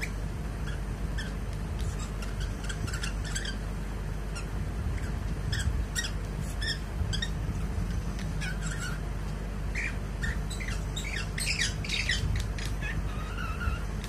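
Lutino cockatiel singing: a string of short chirps and brief whistles, sparse at first and coming thick and fast from about ten seconds in. A steady low hum runs underneath.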